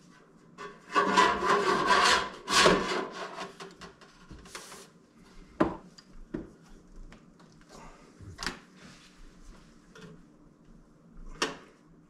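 Steel sheet scraping and sliding against a manual sheet-metal folding brake and workbench as it is pushed into position, loudest in the first few seconds, then three sharp knocks spread through the rest as the plate and the brake's clamp are set.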